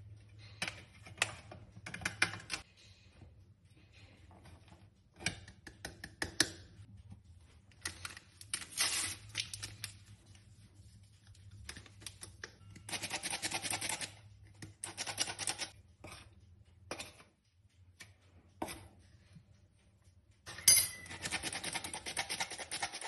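Metal hand-operated flour sifter rattling in bursts of rapid clicking as flour and cocoa are sifted into a steel bowl. Between the bursts come scattered taps and scrapes of a spoon and the sifter against the bowl.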